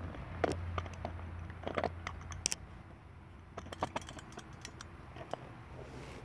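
Scattered light clicks, taps and rattles of a cordless drill and small parts being handled, with a low hum for the first couple of seconds.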